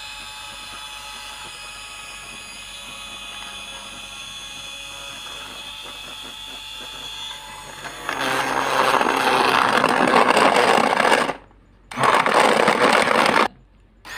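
Hand blender running in a plastic jug of milk and ice cream. A steady motor hum is heard at first, then from about eight seconds in a much louder churning as it blends, which cuts off suddenly twice near the end.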